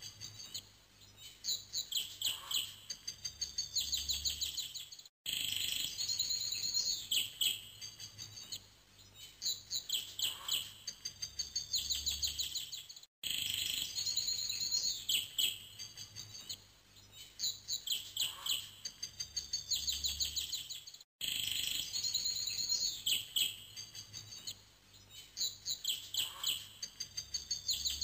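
Looped recording of birdsong: rapid high chirps and trills, the same stretch of about eight seconds repeating, with a brief dropout at each repeat.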